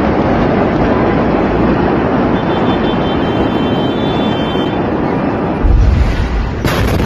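Steady loud rushing noise, then about six seconds in a deep boom as the blast of the Beirut port explosion, a store of ammonium nitrate detonating, reaches the phone's microphone, followed by a harsher hiss near the end.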